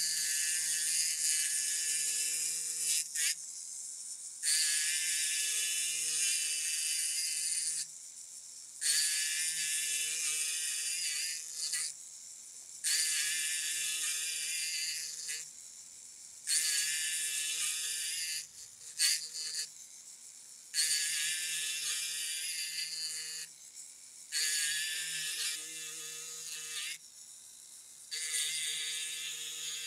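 Powered checkering tool's carbide cutting wheel buzzing as it cuts checkering lines into a walnut gunstock. It goes in eight passes of about three seconds each, with short lulls between as the cutter is lifted and moved to the next line.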